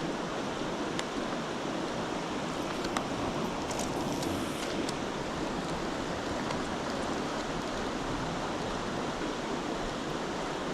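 Steady rush of a trout stream's flowing water, with a few faint clicks along the way.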